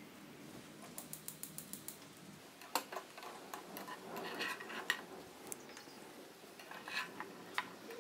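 Light clinks and knocks of kitchen dishes being handled, among them a glass baking dish, with a quick run of small ticks about a second in and a few single knocks after.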